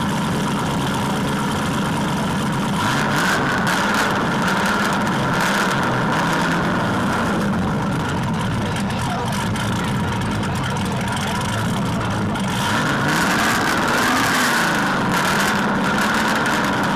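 Car engine running steadily, rising and falling in pitch a couple of times as if lightly revved, over a steady background hubbub.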